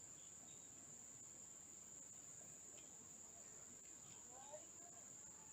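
Near silence apart from a faint, steady, high-pitched drone of insects, with a few faint short chirps scattered through it.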